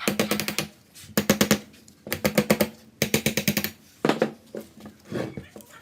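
Power tool hammering in six short bursts of rapid blows, about a dozen a second, the last two bursts shorter and weaker.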